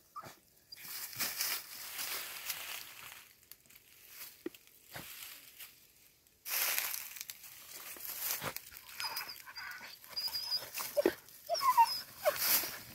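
Dogs digging and pawing into soil and dry bamboo leaf litter, a rough scratching and rustling that comes in spells. Short high whimpers break in several times in the second half.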